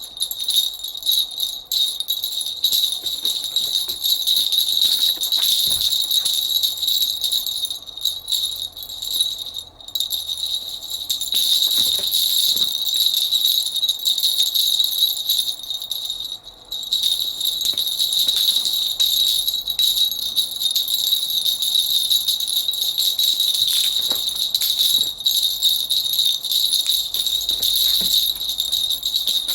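Continuous high jingling of small bells, like sleigh bells shaken steadily in background music, with brief breaks about ten and sixteen seconds in.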